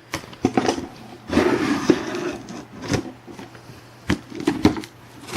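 A shipping package being handled and set down: scraping and rubbing with several sharp knocks.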